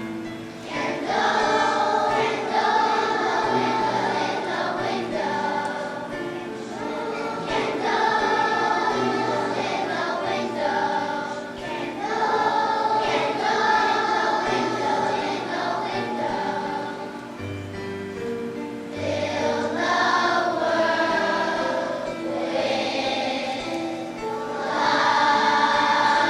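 Young children's choir singing a song together over instrumental accompaniment.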